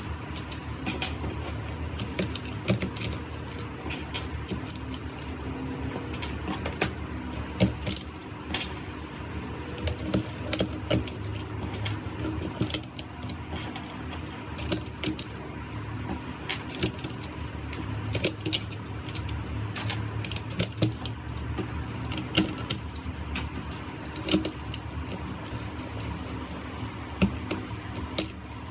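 Typing on a Keychron K3 V2 ultra-slim low-profile optical keyboard: an irregular clatter of keystrokes, at times in quick runs, over a steady low hum.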